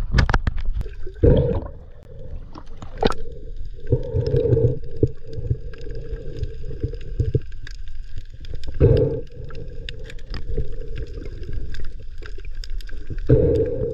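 Muffled underwater sound from a camera held below the surface: water gurgling and rushing in irregular low surges, with scattered sharp clicks throughout.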